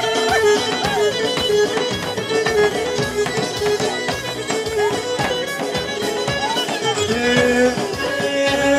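Pontic lyra (kemenche) playing a lively folk dance tune without singing, with a steady dance rhythm.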